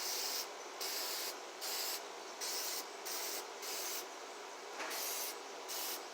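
Aerosol spray-paint can sprayed in a quick series of short hisses, about eight of them, each under half a second, with brief gaps between.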